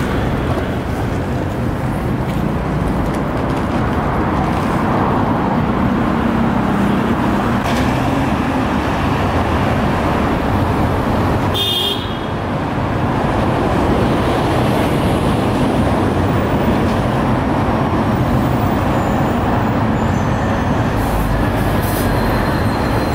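City road traffic: a steady wash of car, van and truck engine and tyre noise, with a brief break about halfway through.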